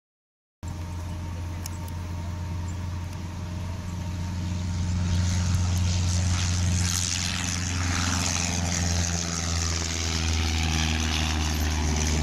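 Small single-engine propeller airplane's piston engine running steadily, starting abruptly about half a second in and growing louder over the next few seconds as the plane comes nearer over the airstrip, then holding level.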